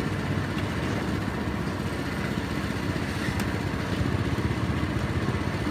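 Small motorbike engine running steadily, a low pulsing rumble.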